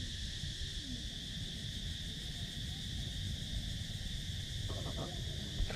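Steady high-pitched insect drone over a low rumble, with a few faint clicks near the end.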